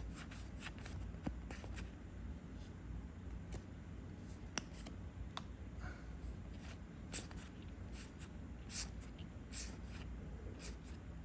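Trading cards being handled and flipped through by hand: scattered soft scrapes and light clicks of card against card.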